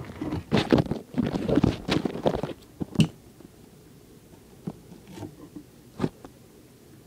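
Shipping package being handled and opened by hand: rustling and scraping for about two and a half seconds, a sharp click about three seconds in, then a few scattered knocks, the strongest about six seconds in.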